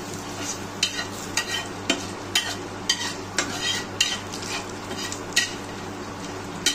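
Whole spices (bay leaves, cardamom, cinnamon and cloves) sizzling in hot oil in a frying pan, with a metal spatula scraping across the pan about twice a second as they are stirred.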